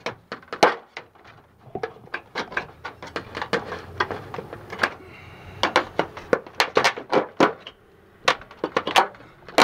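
A flat pry bar knocking and scraping against old aluminum gutter and drip-edge metal as it is worked behind the gutter to pry out a nail. It makes a run of sharp, irregular metallic clicks and knocks.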